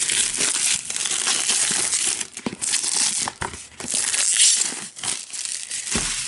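Plastic shrink wrap crinkling and crackling irregularly as it is peeled off a box by hand.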